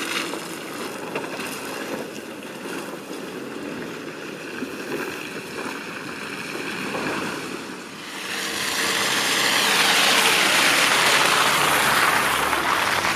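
Volkswagen T6 van driving on a muddy track, engine and tyres running, with a loud rushing noise building from about eight seconds in.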